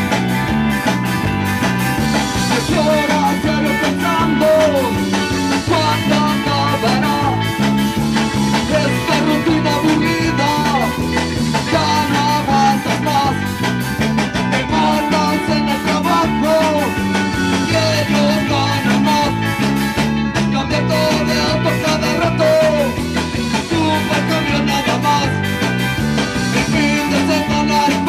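Live punk band playing a song with electric guitars and drums at a steady, up-tempo beat.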